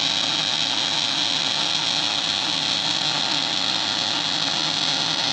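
MIG welding arc from a Lincoln 210 MP running a bead on steel plate with the wire feed speed set too high: a steady, aggressive hiss that cuts off suddenly at the end.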